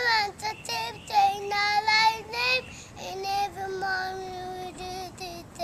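A young child singing, holding long steady notes, the longest lasting about two seconds in the second half.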